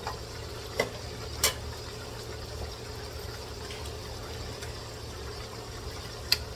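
Pot of chicken adobo simmering, with a steady low hum underneath. Three sharp clicks stand out: one about a second in, another shortly after, and one near the end.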